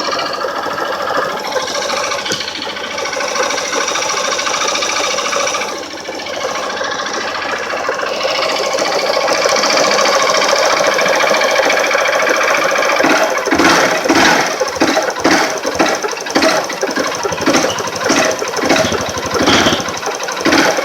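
150 cc motorcycle engine running with a fast, clattering tick-tick knock, which the owner calls a strange noise, as if the engine were tired, after running it late on an oil change. The uploader takes such a knock as typical of a worn connecting-rod bearing at the bottom of the engine. About two-thirds of the way in it turns into a string of sharp, uneven pulses.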